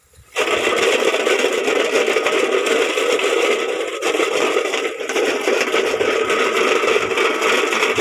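A square metal tin rattled hard and without pause, a loud continuous metallic clatter starting a moment in: a bird scarer, made to drive munias off ripening rice.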